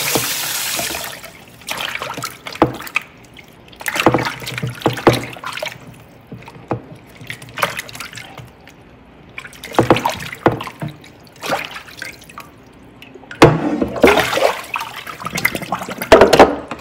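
Tap water runs and shuts off about a second in. Then pieces of dried salted fish are washed in a bowl of water, with irregular bouts of splashing and sloshing.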